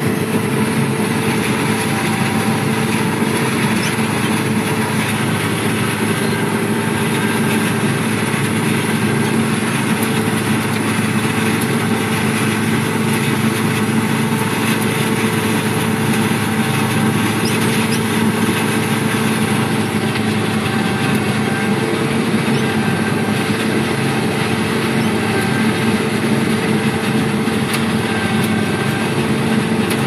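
John Deere 3520 sugar cane harvester running steadily while cutting cane, heard from inside the cab: a loud, even drone with several steady tones over a dense mechanical noise.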